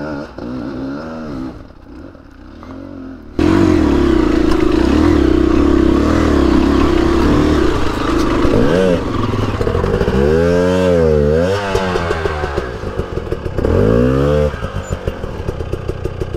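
KTM enduro dirt bike engine revving in repeated rising-and-falling bursts as the bike is forced up a steep rock ledge, dropping to a steady pulsing idle near the end. For the first three seconds a quieter engine revs, then the sound jumps suddenly to the loud, close engine.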